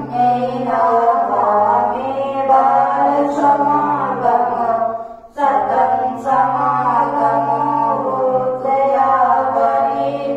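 A man chanting a Buddhist prayer in long, steady melodic phrases, with one short pause for breath about five seconds in.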